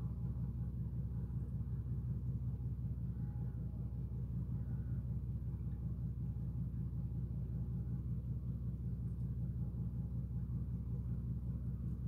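A steady low rumble with a faint hum in it, unchanging throughout.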